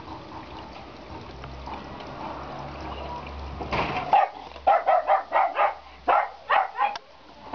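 A series of sharp barks, about two or three a second, starting about halfway through, over a low rumble in the first half.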